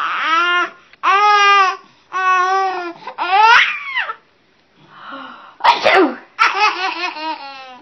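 A woman sneezes once, a sharp sudden burst about three quarters of the way through after a brief breathy pause. A baby laughs in high-pitched bursts before and after it.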